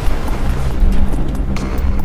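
Background music with a heavy bass beat and held low notes.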